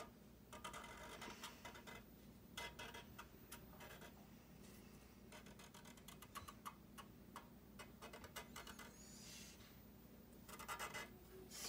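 Faint scratching of a black Sharpie marker's felt tip drawing strokes on paper, in short irregular bursts.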